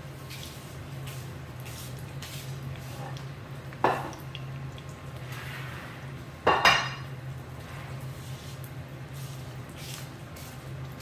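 Spring rolls frying in a pan of oil, faintly crackling over a steady low hum, with two loud clatters of kitchenware about four and six and a half seconds in, the second one ringing like metal.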